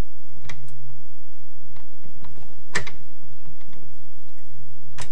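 Light metal clicks and clinks of auger parts and pins being handled, scattered and irregular, with one sharp click near the middle and another near the end, over a steady low hum.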